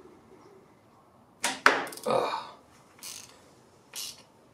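Hand tools and engine parts handled in a motorcycle cam chest: a few short, sharp clinks and rattles about a second and a half in, with smaller ones near the end.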